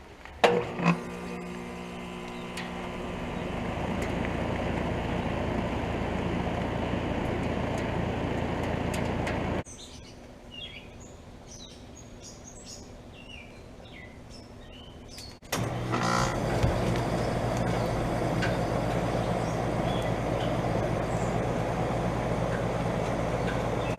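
Central air conditioner outdoor units starting up: a sharp click, then the compressor hum and condenser fan noise building over a few seconds and running steadily. Partway through this drops to quieter background with birds chirping. About 15 seconds in, a unit starts abruptly and runs steadily with the same hum and fan noise.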